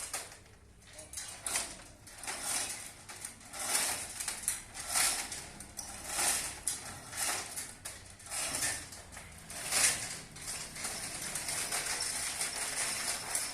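Repeated metallic rattling and scraping from a concrete mixer being worked onto a pickup truck, in uneven bursts about a second apart and a steadier rattle near the end.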